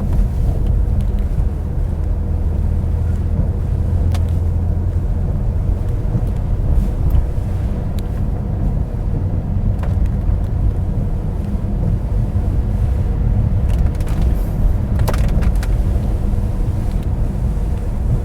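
Steady low rumble of car road and engine noise, heard from inside a moving car, with a couple of faint clicks.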